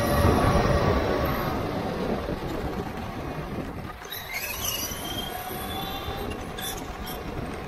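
Traxxas Stampede 4x4 RC truck driving on pavement, heard from on board: a steady electric motor and gear whine over tyre noise. It is loudest in the first second or so, and a whine rises in pitch about four to five seconds in.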